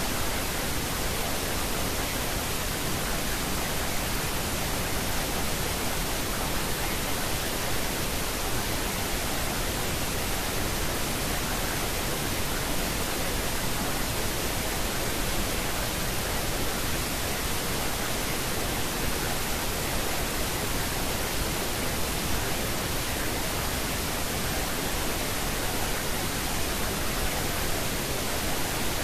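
Steady pink noise, an even hiss that never changes: the masking layer of a subliminal affirmation recording, with the affirmations themselves buried beneath it.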